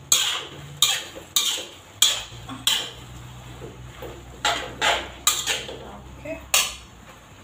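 Metal spatula scraping and clanking against a metal wok while stirring glass noodles with cauliflower, in quick strokes about two a second, with a short pause about three seconds in.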